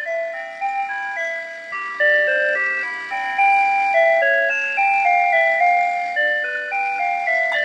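Mr. Christmas Peppermint Teacup's built-in electronic music playing a chiming holiday tune one clean note at a time, rather loud.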